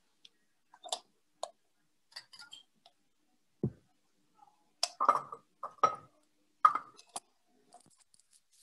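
A scattered series of sharp clicks and knocks, about a dozen in all, with a deeper thump near the middle and the loudest clatter from about five to seven seconds in: hard objects being handled and set down on a tabletop.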